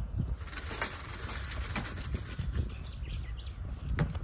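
Outdoor ambience: a low steady rumble with a few soft knocks, and a sharper knock about four seconds in.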